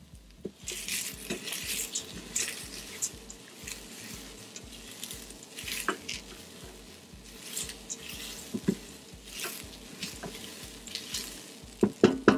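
Silicone spatula stirring and scraping rice and diced onion around the hot stainless-steel inner pot of an electric pressure cooker on its sauté setting, toasting the rice in olive oil. Repeated scraping strokes, with a few louder knocks against the pot near the end.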